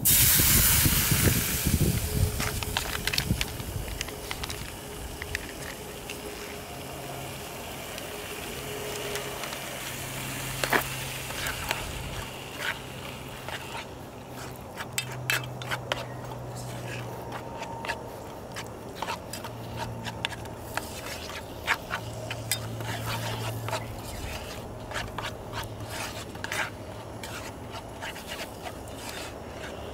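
Food frying in a small pan: a loud sizzle at the start that dies down over the first few seconds, then a utensil stirring and scraping against the pan with many small clicks.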